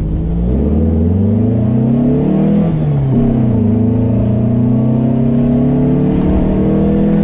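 1835 cc air-cooled VW Beetle flat-four pulling hard under full acceleration, heard from inside the cabin: the engine note rises, drops sharply at a gear change about 2.7 seconds in, then climbs steadily again in the next gear.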